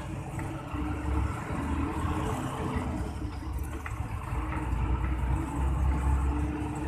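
Hino AK8 bus engine running as the bus drives, with a deep low rumble that swells about a second in and again near the end.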